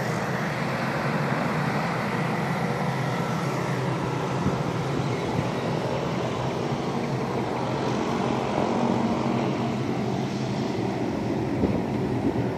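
Steady engine drone, even throughout, with a low hum under a broad rushing noise.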